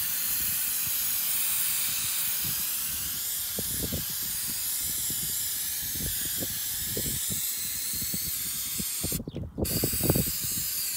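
Aerosol can of Flex Seal rubber coating spraying in a long, steady hiss, broken off briefly about nine seconds in and then resumed.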